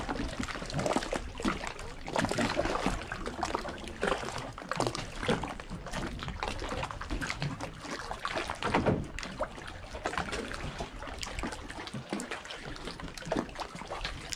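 Kayak paddle blades dipping into calm water, with irregular splashes, drips and water trickling off the blades as the strokes go on.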